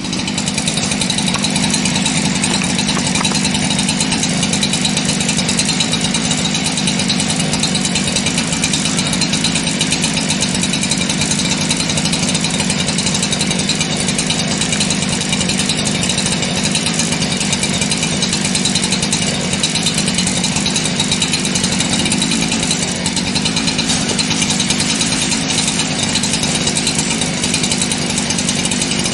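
An engine running steadily at a constant speed, without revving up or down.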